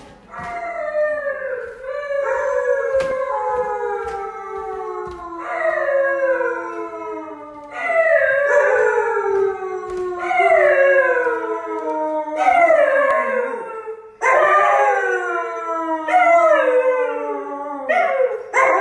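Husky howling in a string of long calls, each sliding down in pitch and starting again every couple of seconds. A few footsteps knock on wooden stairs in the first seconds.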